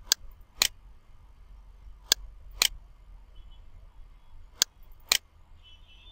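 Computer mouse clicking: three pairs of sharp clicks, the two clicks in each pair about half a second apart, over a faint low hum.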